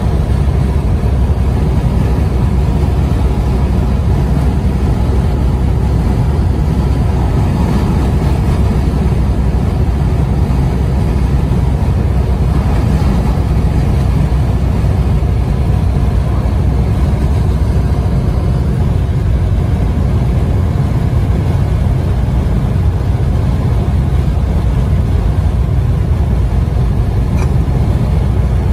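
Steady low road rumble of a vehicle cruising at highway speed, heard from inside the cab.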